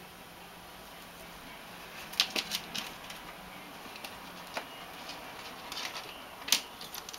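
Dry plant stems and leaves crackling as a kitten bats and bites at them: scattered sharp clicks, starting about two seconds in, with the loudest one near the end.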